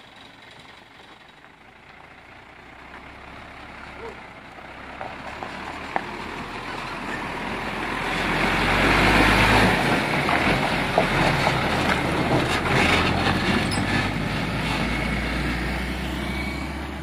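Hino diesel truck driving slowly past: its engine hum grows louder as it approaches, peaks as the cab goes by about halfway through, and stays loud as it pulls away.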